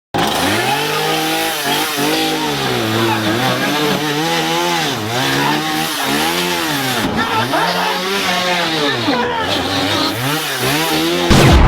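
An engine revving up and down over and over, its pitch rising and falling about once a second. It is cut off by a louder bang near the end.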